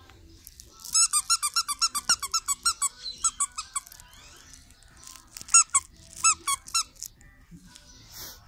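Squeaky plush toy squeaking fast and repeatedly as a puppy bites and chews on it, in three quick runs of short squeaks about eight a second, the first and longest about a second in.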